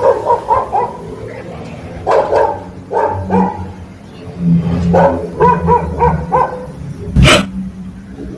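Dog barking in short clusters of two or three barks, with one louder, sharper bark about seven seconds in.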